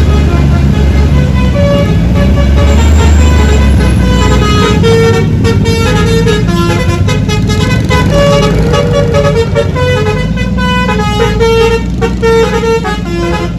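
Bus telolet horn playing a melody: a string of loud, pitched horn notes stepping up and down in a tune, over the low rumble of the bus's engine, which is heaviest in the first few seconds.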